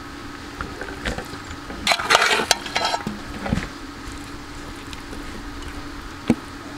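Steel serving spoon scraping and clinking as chicken pieces are scooped out and served onto a banana leaf, busiest about two to three seconds in, with a single sharp knock near the end.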